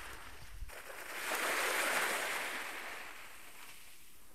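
Small sea wave breaking and washing up the shore, a hiss that swells about a second in and then fades away.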